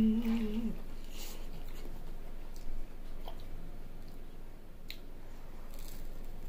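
A short hummed "mmm" that stops under a second in, then faint wet mouth clicks of a person chewing pizza, with a bite into a cheese pizza slice near the end.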